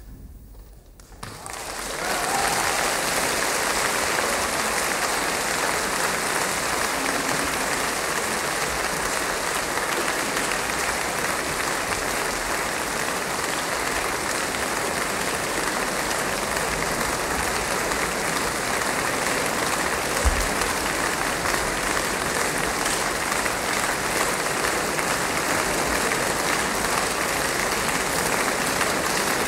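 Audience applauding, swelling up about a second in and then going on at a steady level; a single brief low thump partway through.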